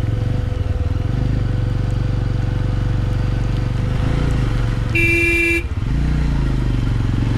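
Motorcycle engine running steadily on the move, with one short horn blast about five seconds in, lasting about half a second.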